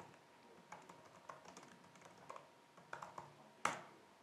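Typing on a computer keyboard: a run of faint, irregular keystrokes, with one louder key strike about three and a half seconds in.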